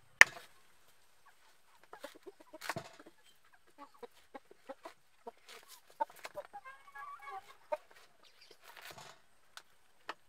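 Chickens clucking in short runs of calls, with a kitchen knife knocking on a thick wooden chopping board as squash is cut. The loudest sound is one sharp knock just after the start.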